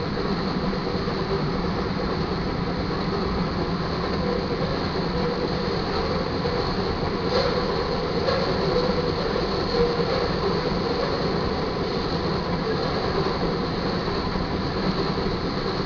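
Loaded crude oil tank cars of a freight train rolling past, a steady rumble with wheel and rail clatter, and one brief louder clank about seven seconds in.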